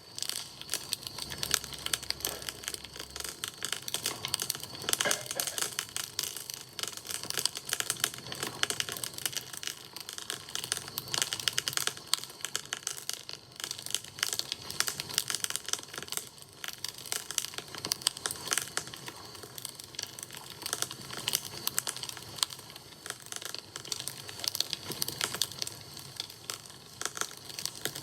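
Wood campfire crackling: a continuous dense run of small sharp snaps and cracks.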